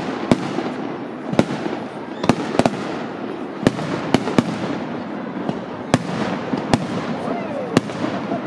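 Fireworks display: about ten sharp bangs from bursting shells at uneven intervals, over a steady background rush.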